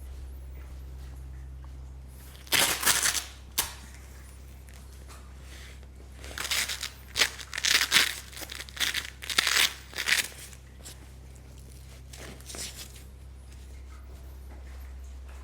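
Several short bursts of tearing and crinkling as material is handled, most of them clustered in the middle, over a steady low hum.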